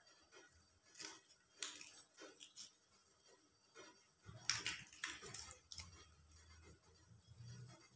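Fresh banana leaf crackling and rustling faintly as it is folded by hand over cake batter on a plastic cutting board, in short scattered crinkles that are loudest about four and a half seconds in.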